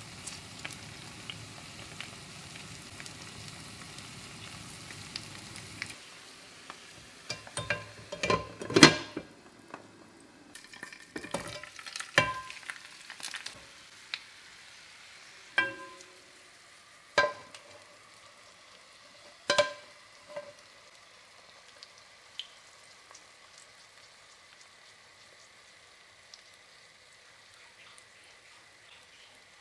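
Sliced potatoes sizzling in oil in a frying pan for about six seconds, then stopping. After that, a string of separate sharp clanks and knocks of metal pans being handled on a gas hob, the loudest about nine seconds in.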